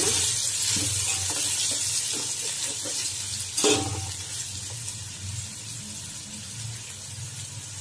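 Sliced onions frying in hot oil in a steel pot, sizzling as they are stirred with a spoon. The sizzle is loudest at first and slowly fades, with a single knock on the pot about three and a half seconds in.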